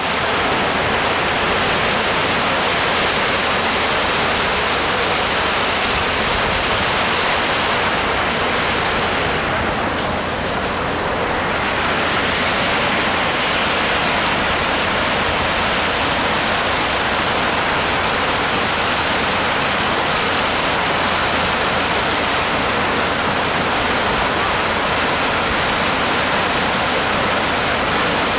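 Sea waves surging and washing on the shore as a continuous rush of surf, with a short lull in the hiss about ten seconds in.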